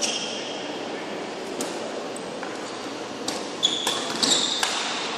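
Badminton rally on an indoor court: sharp clicks of rackets striking the shuttlecock, one about a second and a half in and a quick series in the second half, with brief squeaks of shoes on the court floor.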